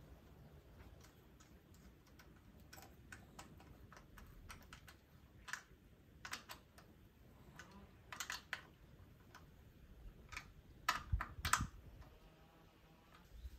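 Scattered metallic clicks and taps of a hand tool working bolts on an engine's aluminium intake manifold, the loudest few about eleven seconds in.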